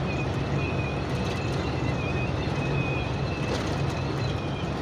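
Steady high-pitched wind whistle inside a moving vehicle's cab at highway speed, over the low drone of the engine and road noise. The driver takes it to come from the front, along the windshield.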